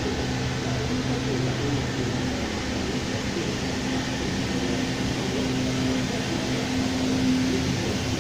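Steady mechanical hum with a constant hiss, like a ventilation fan or extraction running in a workshop.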